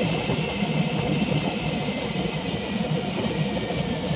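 Steady wind rush buffeting a bike-mounted action camera's microphone while riding a road bike at speed on a paved path, with tyre rolling noise underneath.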